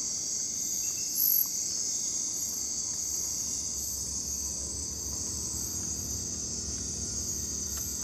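Nighttime insect chorus in tropical forest: a steady high-pitched trill with shorter chirps repeating above it, and one louder chirp about a second in.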